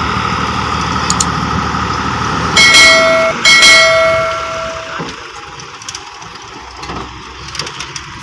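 A vehicle horn sounds two blasts, a short one and then a longer one, over a running engine. The engine noise fades about five seconds in.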